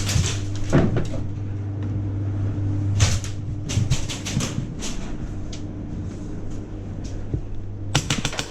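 Irregular sharp clacks and knocks in quick runs, over a steady low hum: airsoft guns firing and BBs striking hard surfaces during a close-quarters game.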